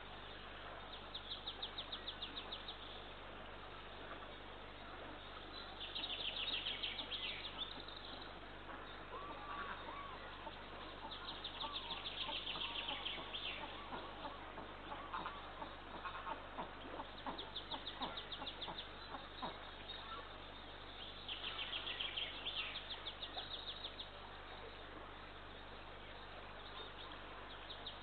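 A bird singing short rapid trills, each lasting about two seconds and repeated every five seconds or so.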